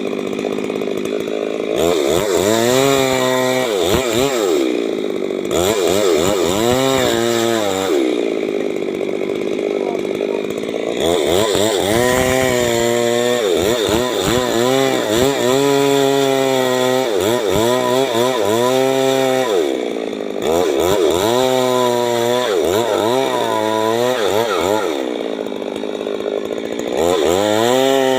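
Stihl MS 382 two-stroke chainsaw cutting, its engine pitch dipping and rising again over and over as the chain bites under load, with steadier, slightly quieter running between cuts.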